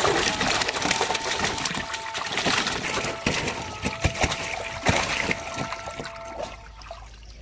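Live fish thrashing in shallow water on a plastic tarp: busy splashing and sloshing broken by many sharp slaps, dying down near the end.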